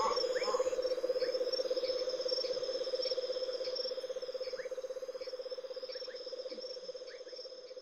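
Tropical rainforest chorus of calling insects and frogs: a steady, fast-pulsing low trill under a continuous high insect whine, with scattered short falling chirps. The chorus slowly fades down toward the end.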